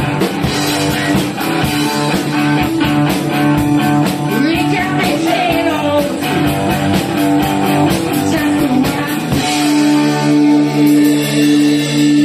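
Live rock band: electric guitar and drum kit playing, with a man singing. About nine and a half seconds in the drums stop and a guitar chord rings on, pulsing evenly in loudness.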